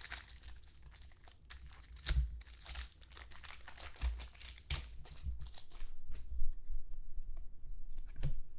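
Foil wrapper of a Topps Finest football card pack being torn open and crumpled, crinkling and crackling.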